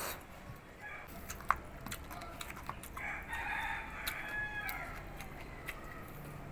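A rooster crowing once, about three seconds in, for about two seconds, with scattered light clicks around it.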